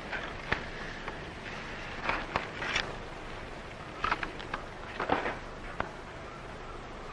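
Steady hiss of an old film soundtrack, broken by a few sharp clicks and several short scuffing noises around the middle.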